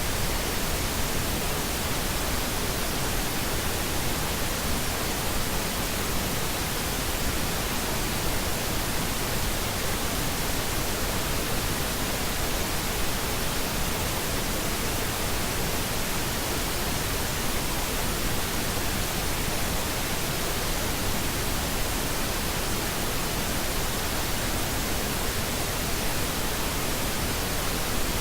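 Steady pink noise: an even, unchanging hiss with no tones or breaks.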